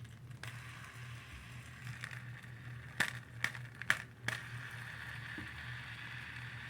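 Fidget spinner being handled: four sharp clicks about half a second apart, then a steady faint whir as it spins.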